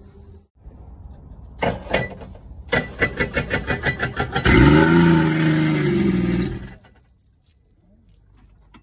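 Sea-Doo RXT 260 RS jet ski engine test-started out of the water. After two clicks comes about two seconds of rapid starter cranking, then the engine catches and runs loudly for about two seconds, revving up and back down, before it is shut off. It starts, showing that the used engine runs.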